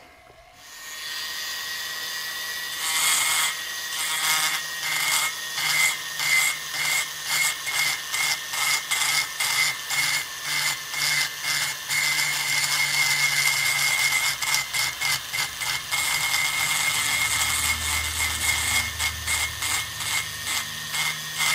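A rotary tool with a burr spins up about half a second in and grinds the intake port of a motorcycle cylinder head: a steady high whine with a cutting noise that swells and fades about twice a second as the burr is worked along the port.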